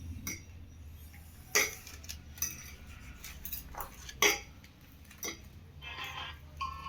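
Metal cutlery clinking against plates: about half a dozen short, sharp clinks a second or so apart, over a low steady hum.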